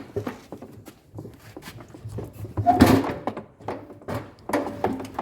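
Irregular knocks and clatter of washing machine parts being handled and set down. The loudest knock comes about three seconds in.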